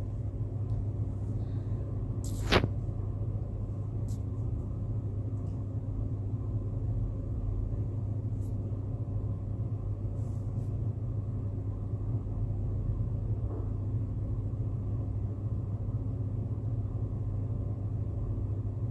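Steady low background hum, with one sharp click about two and a half seconds in.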